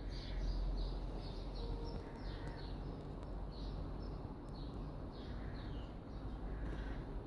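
Small birds chirping, a string of short falling high notes a couple of times a second, over a steady low rumble.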